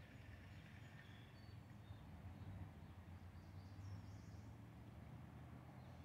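Near-quiet outdoor ambience: a faint low steady hum with a few faint bird chirps.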